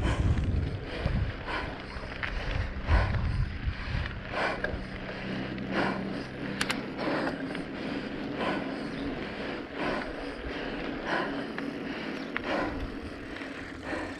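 Bicycle ridden uphill: a short creak or click from the drivetrain repeats about every second and a half, with low wind rumble on the microphone in the first few seconds.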